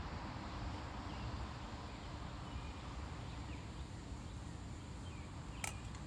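Outdoor ambience: a steady low rumble with several faint short bird chirps, and a sharp click a little before the end.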